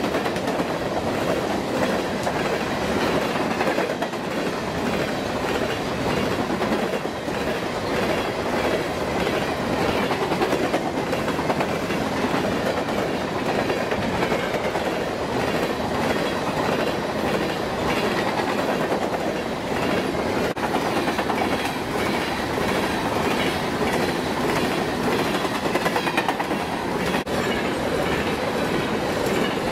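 Empty coal hopper cars rolling past at track speed: a steady rolling rumble and rattle of steel wheels on rail, with repeated clicks as the wheels pass over the track.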